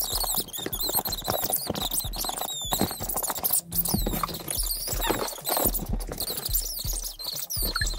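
Rubber chicken dog toy squeaking over and over in quick, high squeals as a husky chews and shakes it, over background music with a steady beat.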